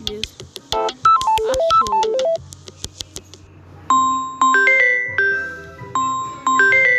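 Samsung phone ringtones played back to back: a quick electronic melody with a beat, then, about four seconds in, a different ringtone of bell-like rising chimes that starts over about two and a half seconds later.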